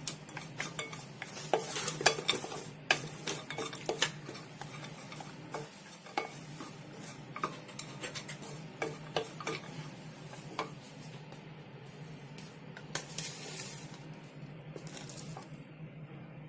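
A metal spoon stirring and scraping in a frying pan, with many sharp taps of the spoon against the pan and a light sizzle, as sugar is mixed into the frying coconut-and-raisin filling. The taps thin out near the end.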